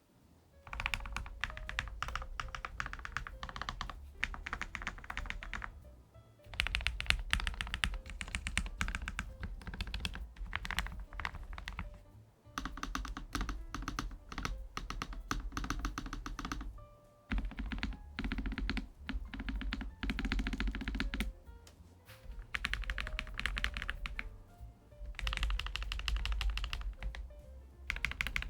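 Fast typing on a Lofree Flow Lite low-profile mechanical keyboard with full-POM switches, in runs of several seconds separated by brief pauses.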